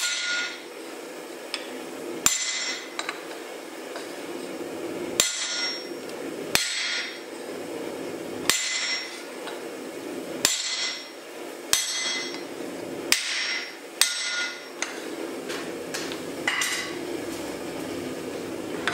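Hand hammer striking a handled square-faced set tool held on the red-hot steel of an axe blank on an anvil. There are about ten blows, spaced a second or two apart, and each rings briefly. A steady low hum runs underneath.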